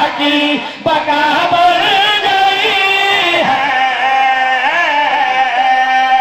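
Men's voices singing a verse in a drawn-out, ornamented chant through microphones, ending on one long held note.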